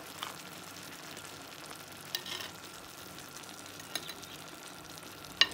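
Broth simmering in a clay tajine of meat and vegetables, a steady sizzling hiss, with a few light clicks of a metal spoon against the dish and a sharper click near the end.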